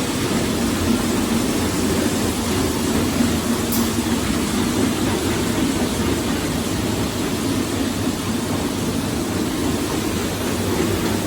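HTC 800 dustless concrete floor grinder running steadily on a garage floor with a fresh set of 40-grit blue diamonds. The concrete is harder than expected, and the diamonds still aren't cutting well.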